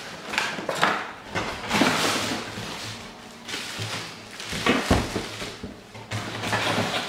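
Clear plastic wrapping crinkling and packaging rustling as a vacuum sealer in its bag is lifted out of its box, with a thump about five seconds in as it is set down on the table.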